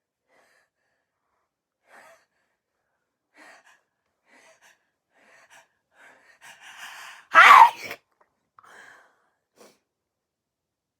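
One sneeze from a person with a cold. A few faint breaths lead into a drawn-in, building breath, then one loud sneeze about seven seconds in, followed by a couple of quiet breaths.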